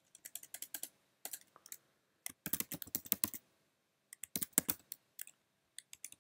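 Computer keyboard keys being typed in short quick bursts with brief pauses between them.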